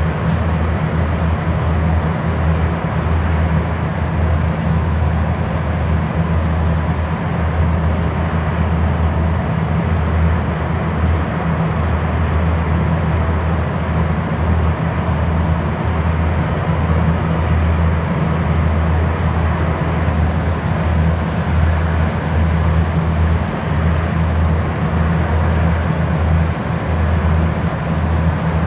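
PKP class ET22 electric freight locomotive standing with its auxiliary machinery running: a steady, loud, low drone.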